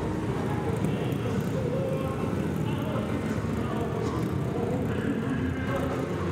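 Steady din of a live circus arena: crowd noise with band music faintly underneath.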